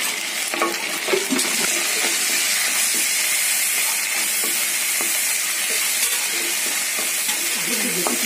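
Goat brain pieces sizzling steadily in hot oil in a pan. A wooden spatula stirs and scrapes through them, with a few small clicks in the first couple of seconds.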